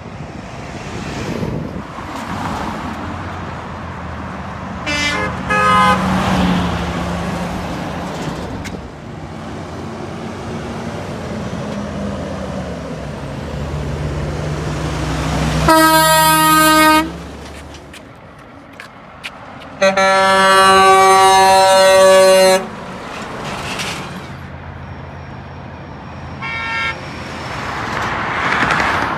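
Truck horns blowing over traffic noise and a truck engine's drone: two short toots, then a loud blast of about a second, then a longer blast of more than two seconds, and a last short toot near the end.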